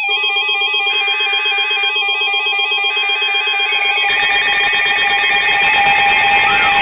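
Several NOAA weather alert radios sounding their alarms at once, signalling a newly issued severe thunderstorm warning. Rapid two-pitch warbling beeps are layered over steady tones and a buzz, with a denser, harsher layer joining about four seconds in and a sweeping tone near the end.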